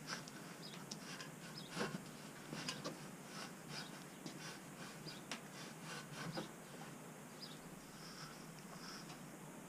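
Hemp wool insulation batts being pushed and tucked into place by gloved hands between metal furring channels: faint rustling and scratching with scattered light clicks and taps, most of them in the first six seconds.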